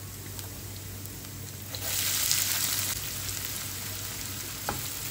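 Onion frying in hot oil in a pan, a steady sizzle that swells louder about two seconds in, then settles. A light utensil tap comes near the end.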